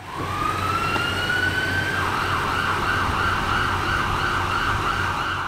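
Electronic emergency-vehicle siren: a wail rising in pitch for about two seconds, then switching to a fast up-and-down yelp, over a steady low hum.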